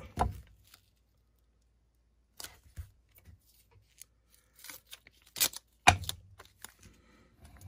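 A strip of transfer tape pulled from its roll and pressed onto a thin card roof panel: scattered short rustles and taps, the sharpest about six seconds in.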